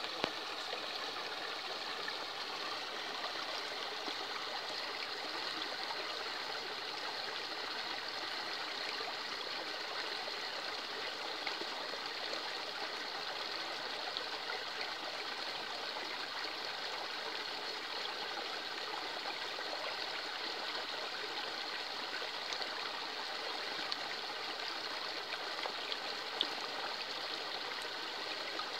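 Shallow woodland stream flowing steadily over stones and leaf litter, fed by a small cascade: an even, continuous babble and trickle of running water.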